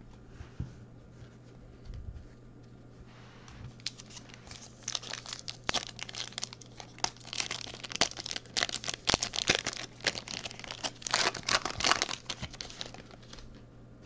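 A foil trading-card pack wrapper being torn open and crinkled by hand: a dense crackle starting about four seconds in and stopping near the end, after a couple of soft handling knocks.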